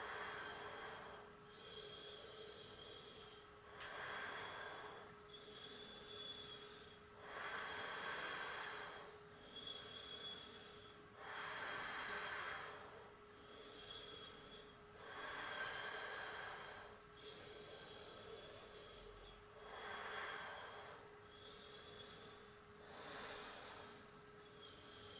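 Slow, deep breathing of a person seated in a yoga breathing exercise: an audible breath swells about every four seconds, with quieter phases between. A faint steady hum runs underneath.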